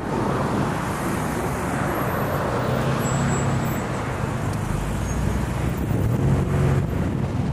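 Road traffic and a car engine idling at a stop; about five seconds in the engine's low rumble rises as the car pulls away.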